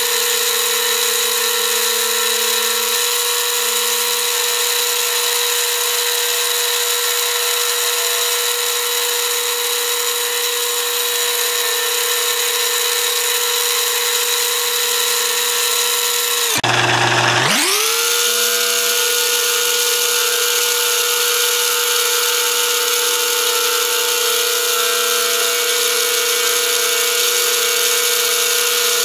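Overhead drive motor spinning the drilling frame's cutter on a rose engine lathe, a steady high whine. About 17 seconds in, the whine cuts out and then climbs back up to speed within about a second.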